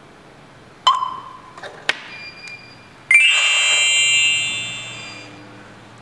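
A few sharp clicks and taps, then about three seconds in a loud electronic beep tone that holds for about a second and fades away: the W4B alarm hub confirming that a remote key fob has just been paired.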